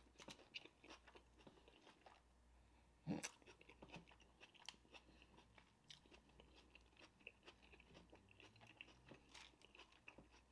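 Faint chewing of a bite of onion-wrapped beef burger: soft wet mouth clicks and light crunches of the grilled onion, with one louder crunch about three seconds in.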